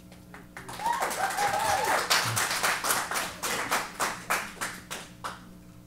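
A small audience clapping in a meeting room, starting about half a second in and dying away near the end, with a brief call from one voice about a second in.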